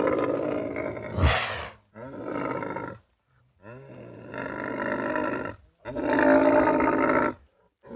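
A series of roars, in separate bursts of about a second each with silence between them.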